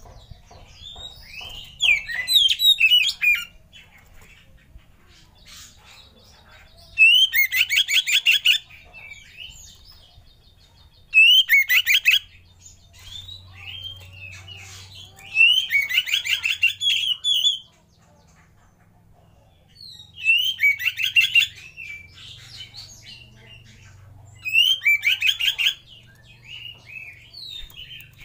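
Oriental magpie-robin singing: six loud phrases of one to two seconds each, made of fast runs of repeated high notes, with softer single notes in the pauses between.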